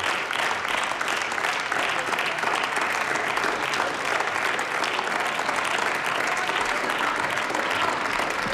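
Steady applause from many people clapping.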